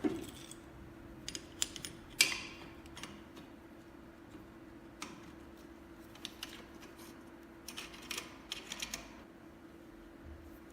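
A steady mechanical hum with scattered light clicks and taps, the sharpest about two seconds in and a quick cluster of them near the end.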